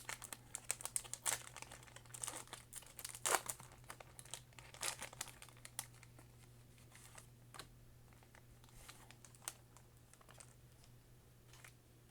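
Foil Pokémon booster-pack wrapper crinkling as it is handled and opened: a dense run of crackles over the first few seconds that thins out to scattered clicks.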